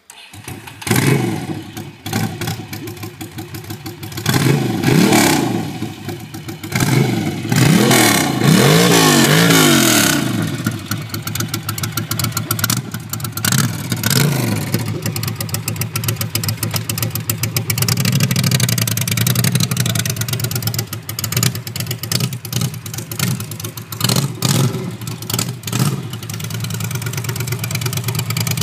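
Ducati Monster 600's air-cooled V-twin running with no exhaust fitted, loud and open. It comes to life with a sharp burst about a second in and is revved up and down several times. It then runs more steadily with short blips, and the bike pulls away near the end.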